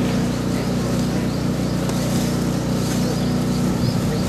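A motor running with a steady low hum that doesn't change.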